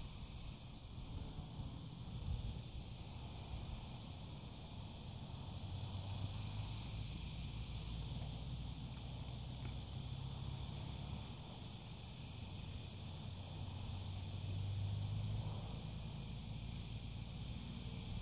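Steady outdoor ambience: a high, even insect chorus with a low, uneven rumble underneath.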